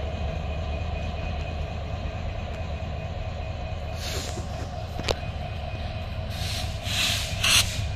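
Diesel locomotive hauling a single coach, a steady low engine rumble with running noise. One sharp click comes about five seconds in, and short bursts of hiss come in the middle and near the end.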